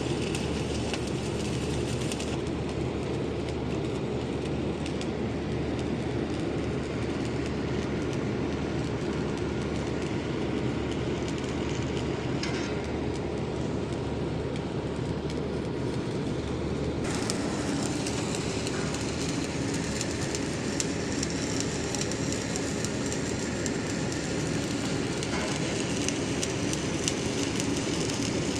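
Electric arc welding: a steady frying crackle from the arc over a low, constant hum. The high crackle thins out about two seconds in and comes back stronger about seventeen seconds in.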